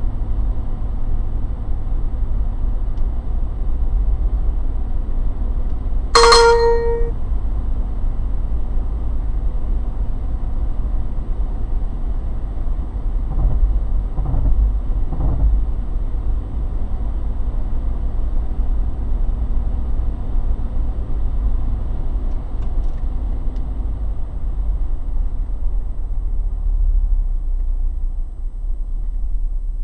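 Steady low road and engine rumble of a car driving at speed, heard from inside the cabin. About six seconds in a short, clear electronic beep sounds once for about a second.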